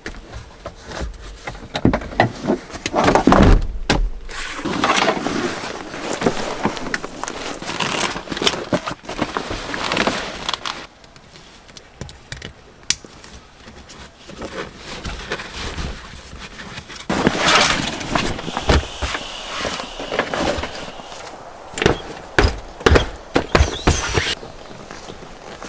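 Handling sounds of folding down the rear seats of a Land Rover Defender 110 and laying a camping mattress over them: clunks and clicks of seat backs and latches, with rustling and sliding of fabric, in spells with a quieter stretch midway.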